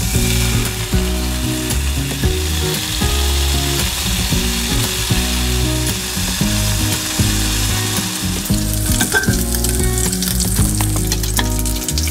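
Bacon strips sizzling as they fry in a nonstick frying pan.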